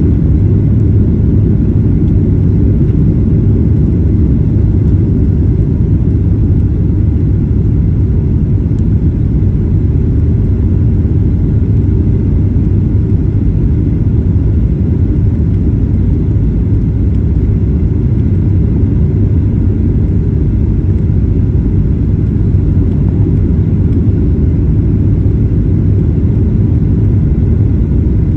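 Steady low rumble of a Boeing 737-9 airliner's engines and airflow during the landing, holding an even level and pitch throughout.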